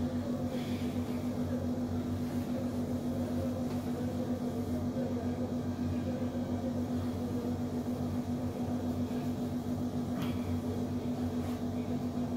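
A steady low hum, with faint rubbing as a cloth wipes a whiteboard clean.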